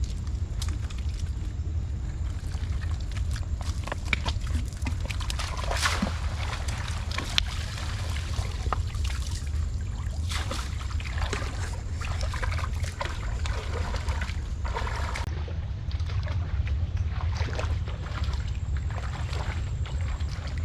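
Water sloshing and splashing with scattered small knocks, over a steady low rumble.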